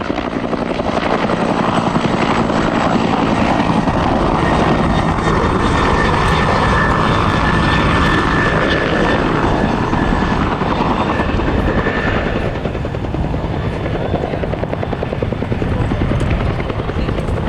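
Bell UH-1N Twin Huey helicopter in flight: the fast, steady chop of its two-bladed main rotor over the run of its twin turboshaft engines. A high turbine whine rises through the middle, where the helicopter is loudest, and eases off toward the end.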